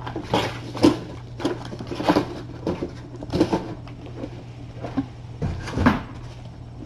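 Irregular soft knocks and rustles, a few a second and unevenly spaced, over a steady low hum.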